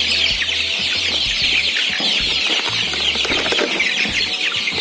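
A crowded flock of 27-day-old kampung super (joper) chickens peeping continuously as they feed: a dense chorus of many short, high, falling cheeps.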